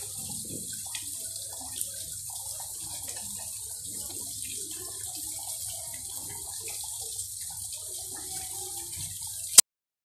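Decorative waterfall wall: water running in a thin sheet down a stacked-stone face and splashing into the basin below, a steady hiss of falling water. It ends in a single sharp click about nine and a half seconds in, and the sound cuts off.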